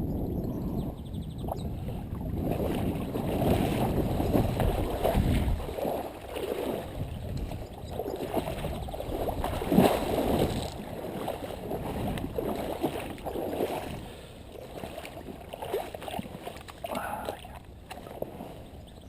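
Water splashing and sloshing unevenly, with a low rumble in the first five seconds or so and one sharper splash about ten seconds in.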